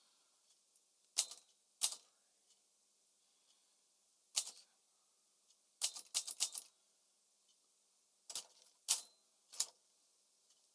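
Smith-Corona Calypso portable typewriter being typed on: sharp single key strikes at uneven intervals, with a quick run of about five strokes near the middle.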